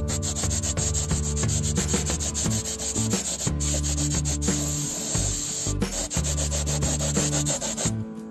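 Sanding, heard sped up and choppy as a dense run of fast scratchy clicks over a low steady hum that shifts pitch in steps.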